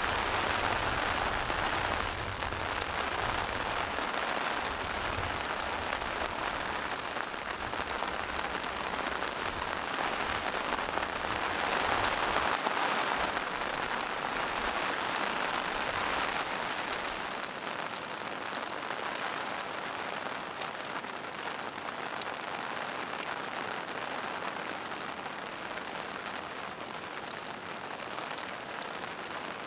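Steady rain falling on forest leaves and moss-covered rocks, with many small drops ticking close by. It swells briefly about twelve seconds in, and a low rumble under it fades away about halfway through.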